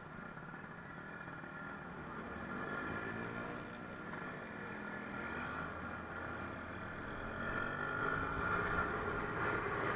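Yamaha Nouvo SX scooter engine idling at a stop, then pulling away and getting louder over the last few seconds.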